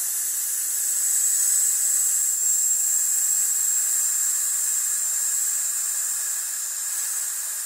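A man's long, steady 'sss' hiss of breath through the teeth, exhaling slowly on one breath as a breath-support exercise for singing. It tapers off slightly near the end.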